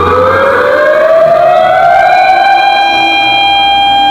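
Civil-defense-style siren wail in a homemade emergency alert alarm: the pitch rises for about two seconds, then holds one steady tone.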